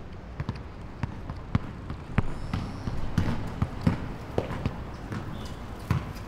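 Basketballs bouncing on a hard court: irregularly spaced thuds, some louder than others.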